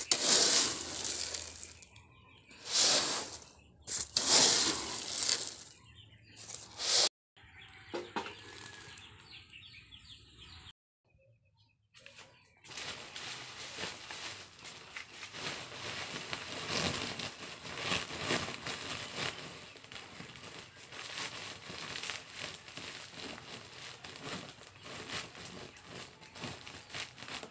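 Woven plastic sacks rustling and crinkling as they are handled: several loud rustles in the first seven seconds, a brief near-silent gap, then steady crinkling as a sack is lifted and tied.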